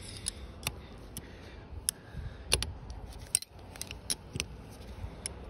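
Steel combination wrenches clicking and clinking on the locknut of a clutch master cylinder pushrod as the nut is tightened against the clevis: scattered sharp metallic clicks, several a second at times.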